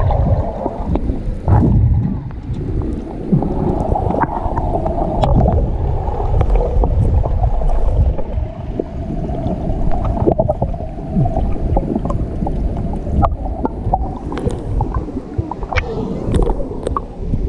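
Muffled water sloshing and gurgling with scattered small clicks, as heard by a camera underwater, where everything above a low, dull range is cut away.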